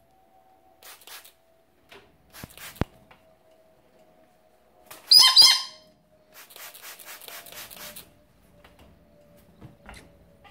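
A galah screeching loudly once, about five seconds in, while being misted from a water spray bottle. Short hissing bursts of spray come before the call, and a longer stretch of wing flapping follows it.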